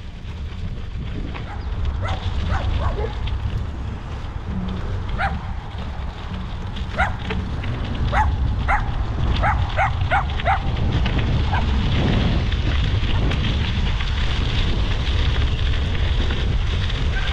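Wind rumbling on the microphone and bicycle tyres crunching on a gravel trail while riding an e-bike, with a dog barking several times, mostly in a quick run about seven to ten seconds in.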